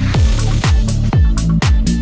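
Electronic dance music with a steady four-on-the-floor kick drum, about two beats a second, over a sustained bass line and crisp hi-hats.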